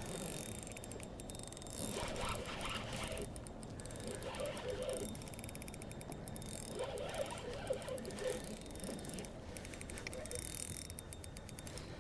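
Fishing reel being cranked while a hooked bass is played, in several runs of fast, fine clicking with short pauses between.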